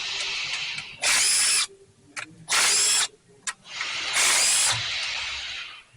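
Cordless power tool spinning a socket in three short bursts of high-pitched motor whine, each about half a second long, each trailing off more quietly.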